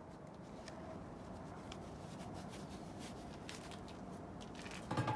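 Small wood fire burning in a Gozney RoccBox wood stove with its lid closed: a steady low rush with scattered faint crackles and pops. Near the end comes one louder knock with a brief metallic ring.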